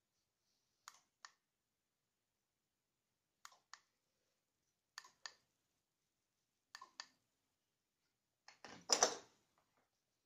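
Switch clicks in pairs, each a press and release about a third of a second apart, four times a couple of seconds apart, as the room's lights are switched. Near the end comes a louder cluster of clicks with a knock.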